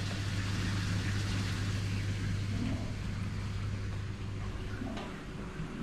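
Steady low hum over an even hiss, a constant mechanical background drone that fades slightly near the end.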